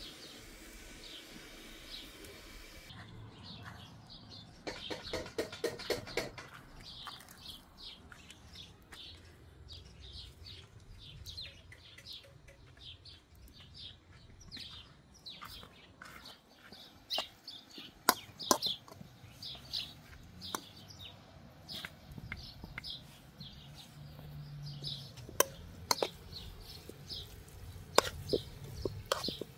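Small birds chirping over and over, short high chirps a few times a second, with a brief run of rapid clicking about five seconds in and a few sharp knocks later on.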